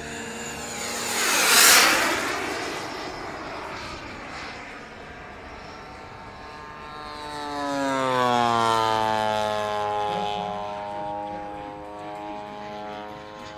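A radio-controlled model turbine jet rushes low past the listener about a second and a half in. Then, from about seven seconds, the 70cc petrol engine of the model Bearcat drones past with its pitch sliding down as it goes by.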